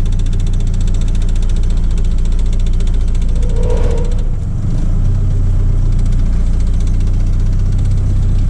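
Motorhome engine running with a loud, rough exhaust note that dips briefly about halfway through. The exhaust is broken: it has cracked right at the exhaust manifold.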